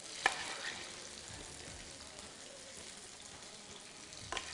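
Steady sizzle of chicken pakoras frying in oil. A spoon clacks sharply against the pan about a quarter second in and again near the end, as potatoes and peas are served out of it.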